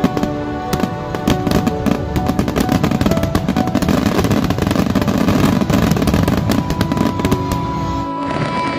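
A fireworks display going off in dense, rapid crackling and popping as shells burst and a ground fountain sprays, with music playing underneath.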